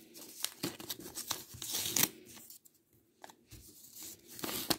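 A small paper note crinkling and rustling as fingers handle it. The crackling comes in bursts: dense for the first two seconds or so, then quieter, with another burst near the end.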